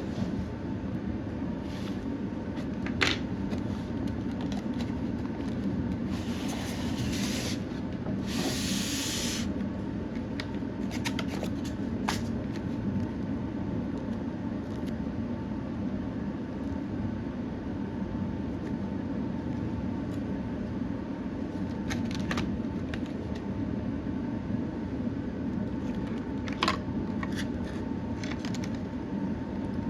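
Plastic and foam packaging being handled: two short crinkling rustles a few seconds in and scattered small clicks and taps, over a steady low background hum.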